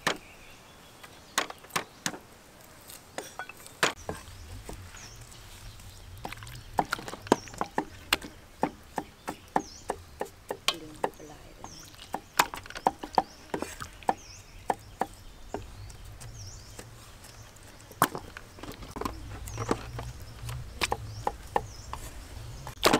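Cleavers chopping raw chicken legs on round wooden chopping blocks: irregular sharp knocks of blade on wood, a few at first, then several a second from about six seconds in.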